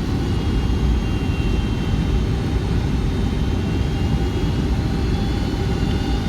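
Cabin noise inside a Boeing 757-200 airliner: a steady, deep rumble of jet engines and airflow with a faint high whine, unchanging throughout.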